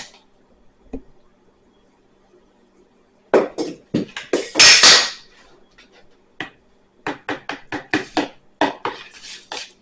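Hard plastic or utensil-like objects clicking and clattering as they are handled, with a louder rustling burst about five seconds in and a quick run of clicks near the end.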